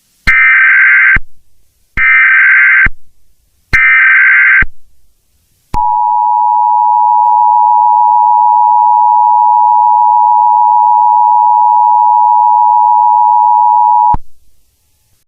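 Emergency Alert System (EAS) header: three short bursts of warbling digital data tones, each just under a second, then the EAS attention signal, a steady two-tone alarm held for about eight and a half seconds that cuts off abruptly. Together they signal that an emergency alert message is about to be broadcast.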